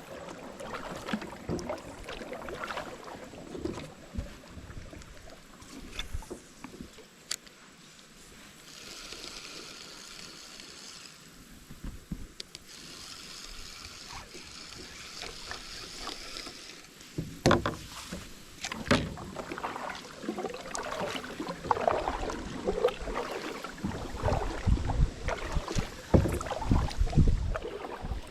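Kayak on a creek: irregular water splashes, knocks against the hull and rustling of gear, busier and louder in the last third.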